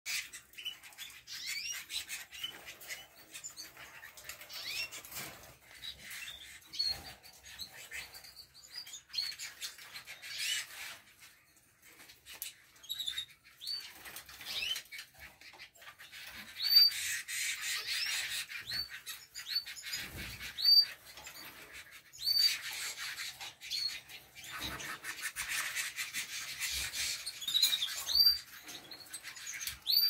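A cage of domestic canaries giving many short, high chirps, with bursts of wing fluttering as the birds jostle around the food bowl, busiest in the second half.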